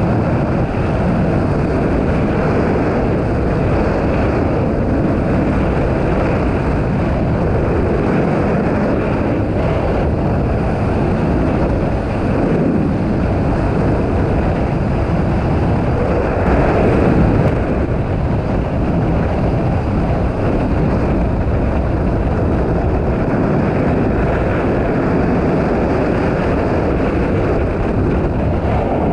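Motorcycle riding at speed: steady rush of wind and engine drone, with a brief louder swell a little past halfway.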